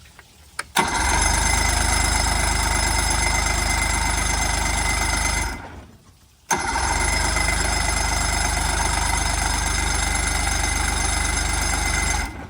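Electric starter cranking a 70 hp Johnson outboard motor in two bursts of about five seconds each, a short pause between them, with a steady whine over a fast even turning-over pulse. The engine turns over but does not catch.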